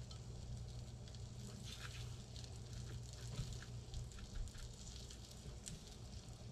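A breaded piece of northern pike frying in hot melted butter in a skillet: a faint, crackling sizzle with scattered small pops. Soft rustling of fish being pressed into dry breading joins it, over a steady low hum.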